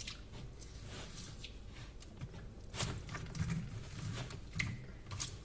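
Scattered small clicks and scrapes of a utensil chipping and digging at a block of hardened chocolate, with faint wet squishing from the softened chocolate.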